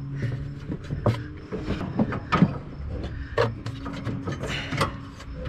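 Steel mower-deck bracket and hanger being wiggled into place by hand: a series of irregular metal knocks, clicks and scrapes, with a low steady hum behind them.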